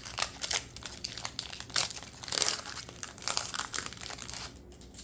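Foil wrapper of a Pokémon booster pack crinkling in a dense run of irregular crackles as it is handled and torn open, dying down near the end.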